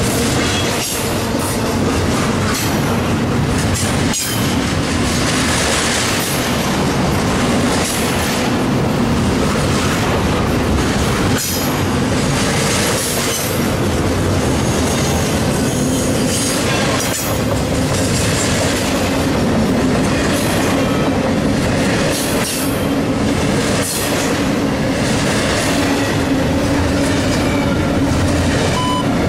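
Double-stack intermodal freight train passing close by: a steady rolling rumble of the container cars, with the steel wheels knocking irregularly over rail joints. A steady low whine grows stronger in the second half.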